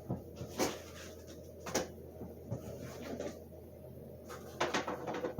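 Cardboard box being cut open and handled: a run of short, sharp scrapes and knocks, irregularly spaced, with a quicker cluster near the end.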